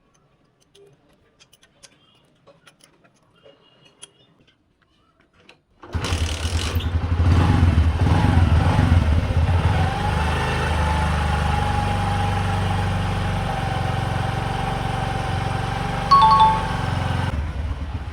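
An engine with a faulty valve lifter assembly starts about six seconds in and keeps running steadily. A short beep sounds near the end.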